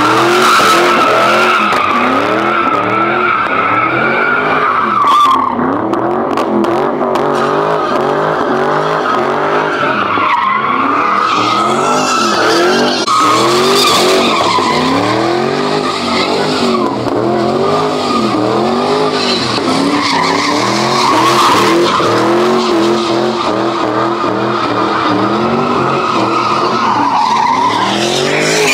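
Dodge V8 muscle car drifting: the tires squeal steadily while the engine revs rise and fall over and over under throttle.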